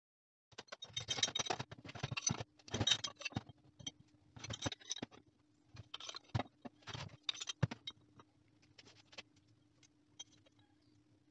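Short pieces of cut rectangular steel tube and steel hammer heads clinking and scraping against each other and the workbench as they are handled. The sound comes in bursts of rattling clatter for about eight seconds, then turns to a few fainter clicks, over a faint steady hum.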